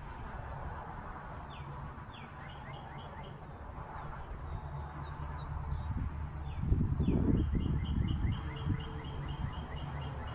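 A songbird singing outdoors: two phrases, each opening with a short downslurred note and running into a fast series of repeated high notes, about five a second. A louder low rumble comes a little past the middle, over a steady low background hum.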